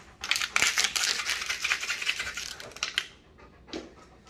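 An empty plastic water bottle crinkling as it is squeezed and shaken in a hand: a rapid, dense crackle for about three seconds that then stops.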